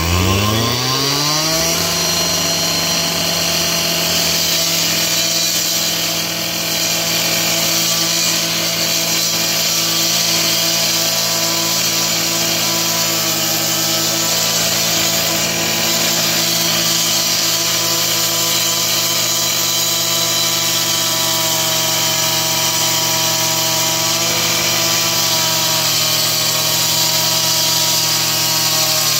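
Stihl TS 420 two-stroke cut-off saw revving up from idle in the first second, then held at full throttle as it cuts through patio pavers, with a brief dip in speed a few seconds in.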